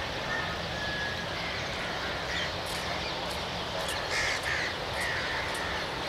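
Several short bird calls, likely crows cawing, over a steady background of outdoor noise.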